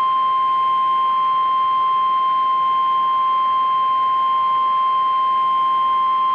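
Emergency Alert System attention signal: a single loud, steady, unbroken tone at about 1050 Hz, the National Weather Service warning alarm tone that comes before a weather warning message.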